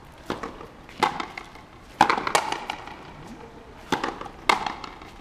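Frontenis rally: the rubber ball is struck by rackets and smacks against the fronton wall, about six sharp impacts spaced unevenly, some coming in quick pairs.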